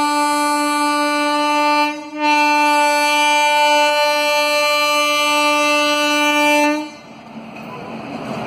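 Electric locomotive's horn sounding two long steady blasts as the train approaches, the first about two seconds, the second nearly five seconds, stopping sharply. After it stops, the rumble of the train rolling over the track grows louder.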